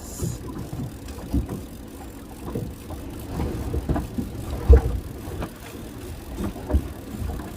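Small fishing boat rocking on choppy water: a low rumble with irregular knocks and thumps against the hull, the loudest a little under five seconds in.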